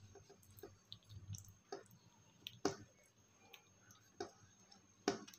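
Thick spiced masala simmering in an open pressure cooker, giving off faint, scattered soft pops and clicks roughly a second apart.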